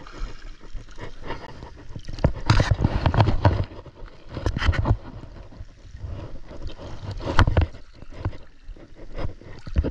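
Sea water sloshing and splashing around the legs of a person wading waist-deep, in irregular surges with each stride, heard from just above the water surface.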